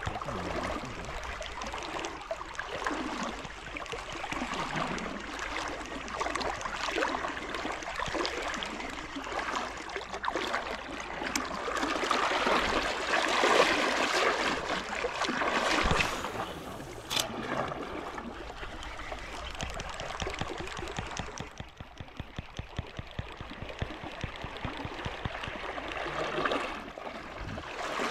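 Canal water flowing and trickling in a steady rush, swelling louder for a few seconds around the middle and easing off later.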